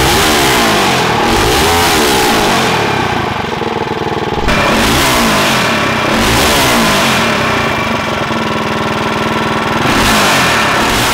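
Modified Harbor Freight Predator 212cc Ghost single-cylinder four-stroke engine, with a stage 5 head, .308 cam and 28 mm Mikuni carb, running on 110 race gas through an open header and muffler. It is blipped again and again, its pitch climbing and falling, and settles to a steadier run about two-thirds of the way through.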